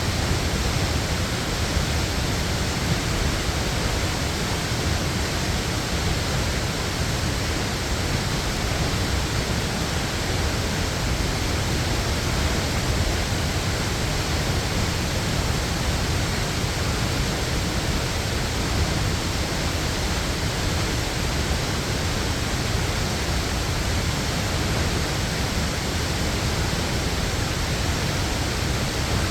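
Waterfall: a steady, unbroken rush of falling water, fullest in the low end.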